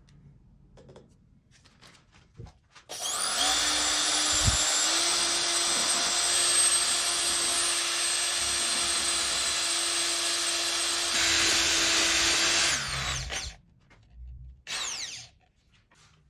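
Corded electric drill spinning a mixing bit in a paper cup of epoxy resin, running steadily for about ten seconds. Its pitch rises slightly a couple of seconds after it starts. A brief second burst follows soon after it stops.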